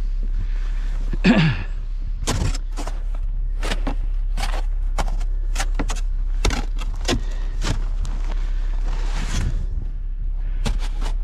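A series of short, sharp impacts, irregularly spaced at about one or two a second, over a steady low rumble, with a brief falling tone about a second in.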